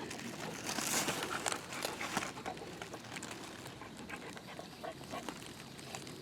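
A dog panting hard, with light rustling and ticks mixed in; the breaths come in short, breathy bursts that are strongest in the first couple of seconds.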